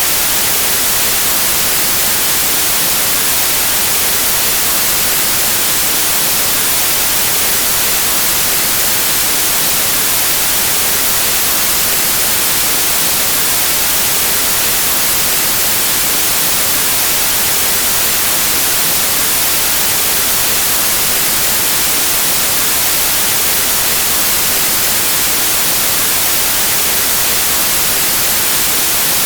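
White noise: a loud, perfectly steady hiss of static, even across the range and brightest in the highs, with no change at all.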